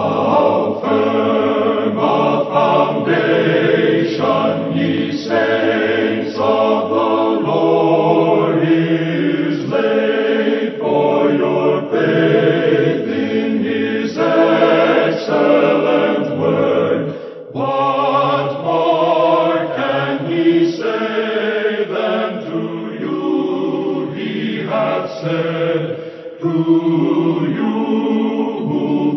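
A choir singing, with a brief break about seventeen seconds in.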